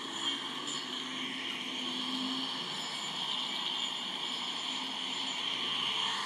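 Electric angle grinder with a sanding disc running at a steady whine while lightly abrading the wall of a cow's claw, cleaning and roughening the horn so the glue for a claw block will hold.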